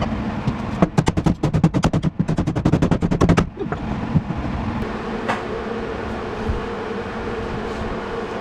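A rapid run of sharp clicks or knocks, about ten a second, lasting some two and a half seconds, followed by a steady hum.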